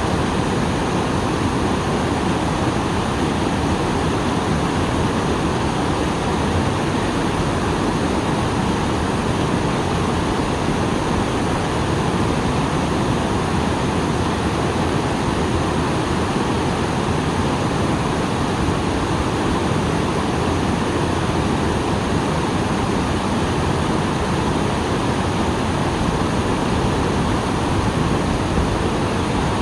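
Small waterfall after rain: falling water pouring and splashing in a steady, unbroken rush.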